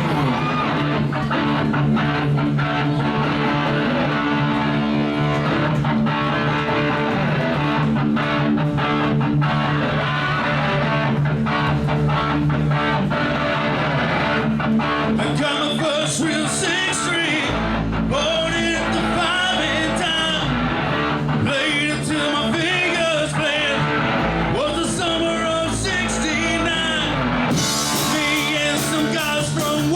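A live rock band plays, with guitar and bass over a steady beat. A singer comes in about halfway through.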